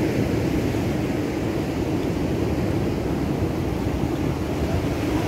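Steady low rumble of wind on the microphone over the wash of sea surf, as a rainstorm blows in.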